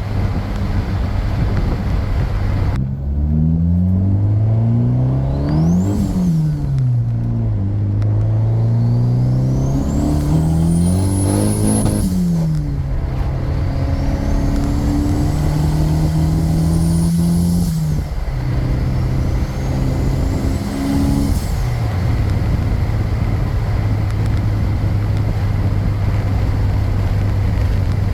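Turbocharged Honda engine pulling hard through the gears four times, its pitch rising and then dropping at each shift, with a turbo whistle climbing over each pull. It settles to a steady cruise for the last several seconds.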